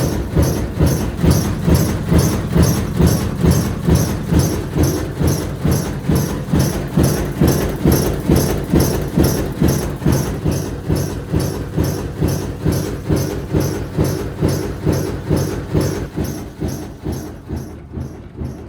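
Older washing machine shaking badly, its tub knocking in a steady rhythm of about two and a half thumps a second, growing fainter over the last few seconds.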